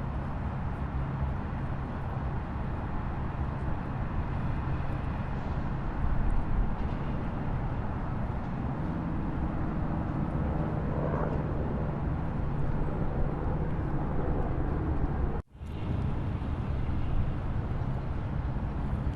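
Waterfall: a steady, dense rush of falling water with a deep rumble. It cuts out for a moment about fifteen seconds in, then carries on unchanged.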